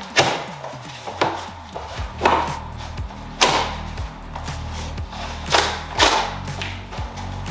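Background music with a steady low bass line, with sharp knocks about once a second.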